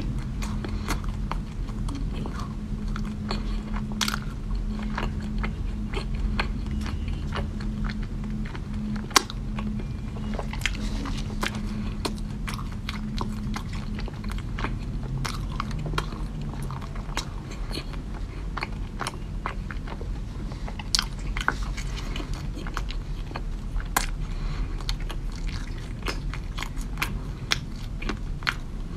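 A person chewing and biting into a crisp green cookie: many sharp crunchy clicks scattered throughout, the loudest about nine seconds in, over a low steady hum.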